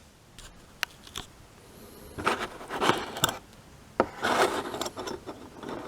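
A few light clicks, then two stretches of rubbing and scraping about a second each, as small die-cast car parts are handled and fitted together on a work surface.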